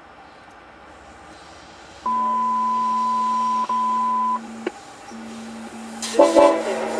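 Radio inside the car sounding a steady beep tone for about two seconds over a low steady hum that runs on after it. A click follows, and a voice breaks in near the end.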